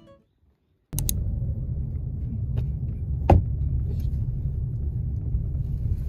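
Car interior noise while driving slowly: a steady low rumble of engine and road starting about a second in after a moment of silence, with a single sharp knock a couple of seconds later.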